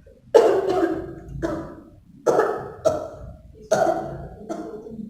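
A woman coughing deliberately and forcefully after a held deep breath: three pairs of coughs, each a strong cough followed by a weaker one. This is the 'effective cough' technique for bringing up sputum.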